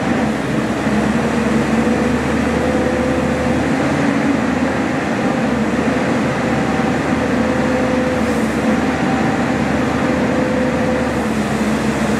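A JingGong JG230Z wheeled material handler running steadily, a continuous machine hum with a held whine over it as the boom and log grapple move.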